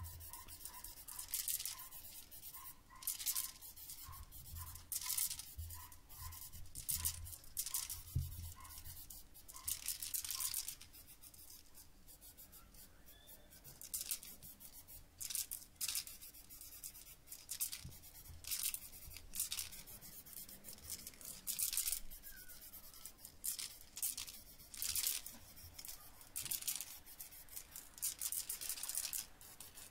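Aerosol spray can of grey primer hissing in short, repeated bursts of about half a second to a second each, as it is swept over metal weight plates.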